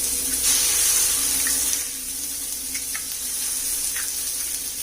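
Onion-tomato masala frying in oil on a hot iron tawa, a steady sizzle that swells about half a second in, as the two eggs are poured onto it, and eases off near two seconds. A few faint ticks sound over it.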